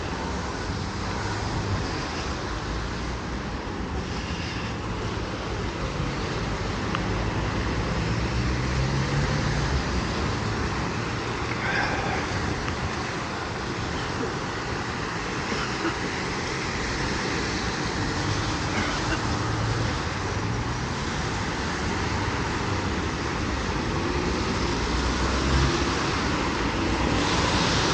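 Street traffic on a wet road: a steady hiss of tyres on wet asphalt, with the hum of passing engines swelling and fading several times.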